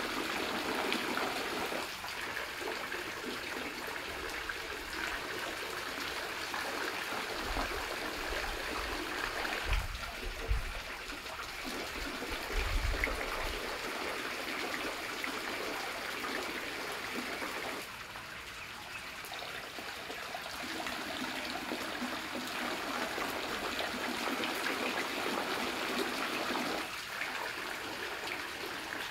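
Garden fountain water jets splashing and trickling steadily, with a few low rumbles near the middle.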